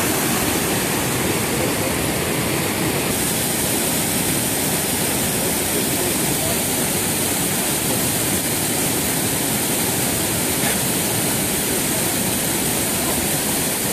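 Small waterfall and rapids pouring over rock ledges: a loud, steady rush of white water.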